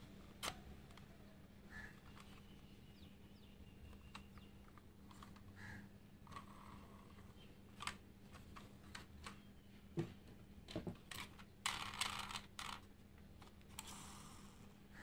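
Faint scattered clicks and taps of die-cast model vehicles being handled, with a quick flurry of clicking about twelve seconds in, over a faint steady hum.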